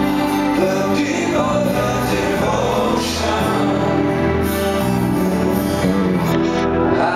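Live rock band playing a power ballad: a male lead vocal sung into a microphone over acoustic guitar and band.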